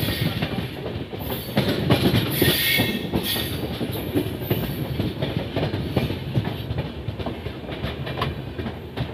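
Sikkim Mahananda Express passenger train running, its coach wheels clattering over the rail joints in a steady run of clicks and knocks. A louder, hissier rush comes between about one and a half and three and a half seconds in.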